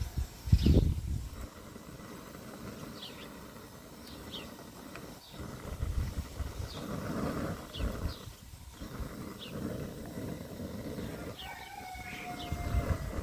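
Piti broth simmering in an open clay pot, with irregular low bubbling that comes and goes in surges.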